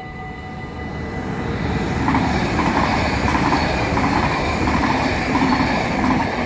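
Double-deck passenger train passing over a level crossing, its wheels clattering in a steady beat of about two a second; the noise builds over the first two seconds and is loudest through the middle. The crossing's electronic warning bell keeps ringing underneath.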